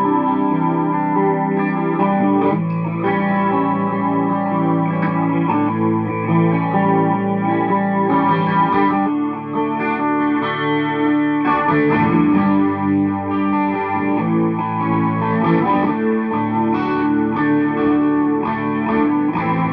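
1980s Vester Super Strat electric guitar with its original pickups, played clean through a Peavey VIP-3 amp: picked chords and single notes, ringing and overlapping.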